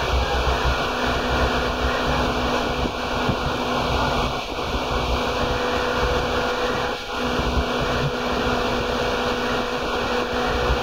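Seibu 2000 series electric train running at steady speed, heard from inside the car: a loud rumble of wheels on rail with a steady low hum.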